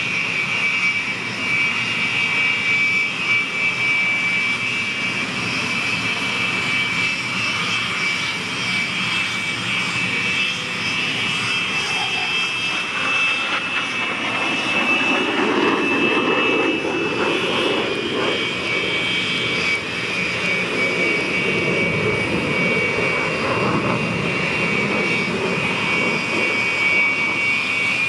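Military jet engine running on the ground: a steady high whine over a rushing roar, with the lower roar swelling for a few seconds midway.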